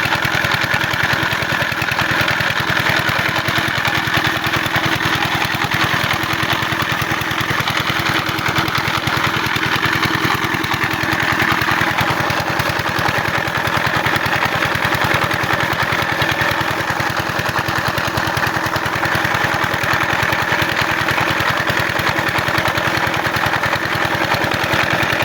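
12 hp diesel water-pump set engine running steadily with an even, fast beat.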